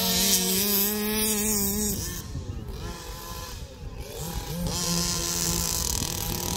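Small two-stroke petrol engines of two large-scale RC cars running at high revs in a drag race: a Zenoah 25.4cc in an HPI Baja and a 34cc O'Neill engine in a King Motor desert truck. The steady high engine note fades about two seconds in, then a revving engine note rises again and holds.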